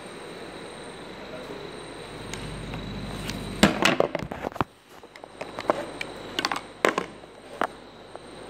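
Handling noise from the phone camera being moved and set in place: a burst of loud knocks and scrapes on the microphone about three and a half seconds in, then a few single sharp clicks, over a steady room hum.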